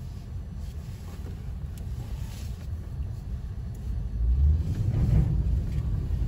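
Car driving over a deep, snow-covered road, heard inside the cabin: a steady low rumble that grows louder about four seconds in.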